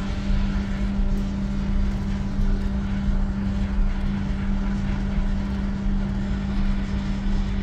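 Steady low rumble of shipboard machinery with a constant hum.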